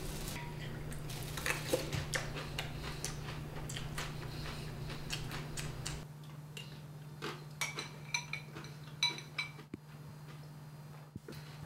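A spoon clinking against a cereal bowl as someone eats, a string of light, irregular clicks over a low steady hum.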